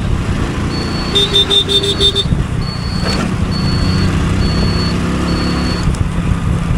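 Street traffic heard from a moving motorcycle: a steady engine and road rumble, with a high electronic beep repeating about once a second and a quick run of short horn beeps about a second in.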